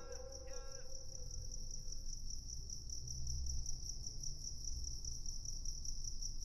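Cricket chirping: a high, evenly pulsing trill that runs steadily on. The last notes of the song's music fade out during the first two seconds.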